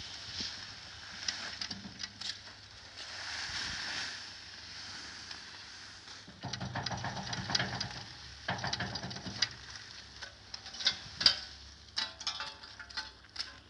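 Clear plastic sheeting crackling and rustling as it is pulled and handled against a truck's side panels. There is a louder stretch of crackling in the middle and sharp snaps and ticks near the end.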